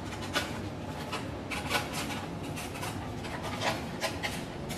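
Large tailor's scissors cutting through a folded sheet of stiff brown pattern paper, a handful of separate snips with the paper rustling as it is handled.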